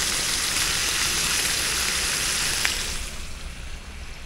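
Pork neck steaks and sliced red onion sizzling in a frying pan, with a single click just before the sizzle cuts off about three seconds in. After that only a fainter steady hiss of drizzle remains.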